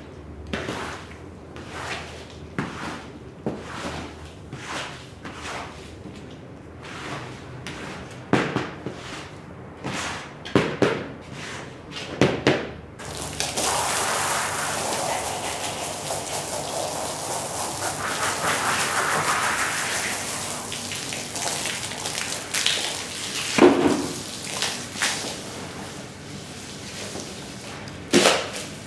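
Wet rug being washed: a run of evenly repeated scrubbing strokes with a few louder knocks, then, about halfway through, a steady rush of spraying water that fades again near the end.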